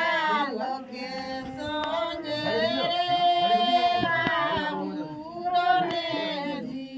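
Women singing a folk wedding song without instruments, in long held notes that slide from one pitch to the next.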